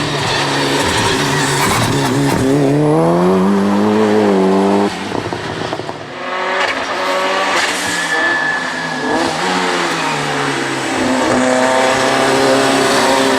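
Hill-climb race car engine revving hard under acceleration, its pitch climbing. About five seconds in the revs drop sharply, then the engine climbs again, and it rises once more near the end.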